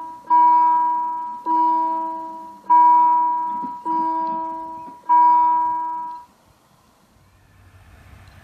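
Level-crossing warning bell striking five times, about once every 1.2 seconds, each strike ringing out and dying away. It falls silent as the barriers finish lowering. Near the end the faint, rising noise of an approaching train begins.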